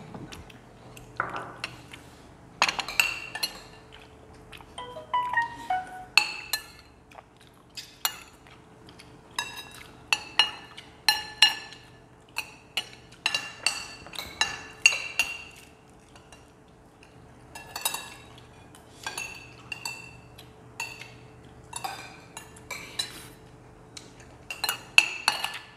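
Metal spoons clinking against ceramic bowls and plates while eating: many sharp, ringing clinks at irregular intervals.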